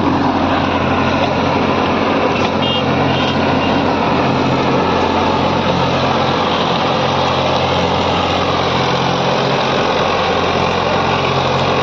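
Swaraj 963 FE tractor's diesel engine running steadily under load while pulling a rotavator through grassy soil.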